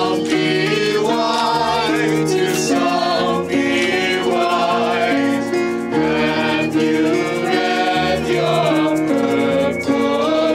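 Background music: a song with singing over sustained chords and a steady bass.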